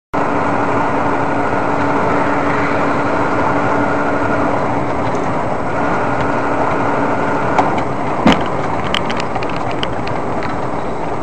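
Steady engine and road noise heard from inside a car cabin at highway speed, with a steady hum that drops away about seven and a half seconds in. A few sharp knocks follow, the loudest a thump a little after eight seconds.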